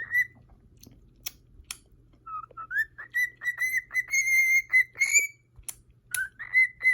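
Cockatiel whistling a run of short, clear notes, with a few sharp clicks about a second in.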